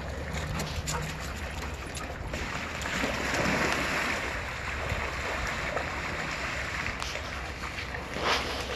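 Dogs and a man splashing through shallow water pooled on a vinyl pool cover, a busy wash of splashing that swells for several seconds in the middle, with one sharp splash near the end.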